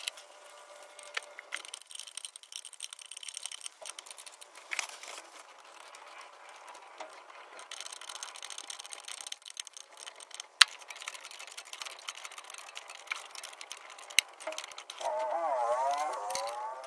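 Light metallic clicks, taps and rattles of the rigid injector fuel lines and their fittings being handled and fitted on the engine, with one sharp click about ten seconds in. Near the end comes a short wavering, pitched squeak.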